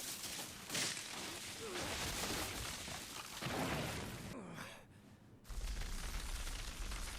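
Animated-series explosion sound effects: a rushing, hissing blast noise with several whooshes. The sound drops briefly about five seconds in, then gives way to a steady low rumble.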